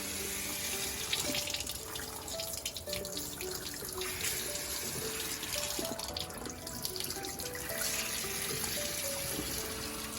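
Water running steadily from a tap into a sink, with light background music playing over it.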